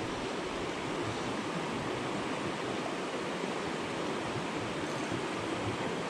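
Mountain creek running high: a steady rush of water pouring over rocks in a riffle.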